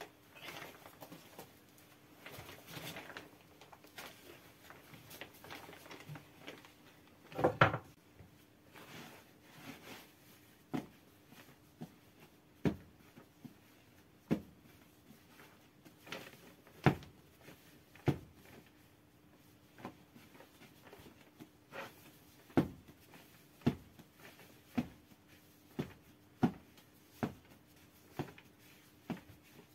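Soft pats and thumps of hand-shaped bread dough balls being pressed and set down on a floured cloth, coming every second or two, with one louder knock about seven seconds in. A faint steady hum lies underneath.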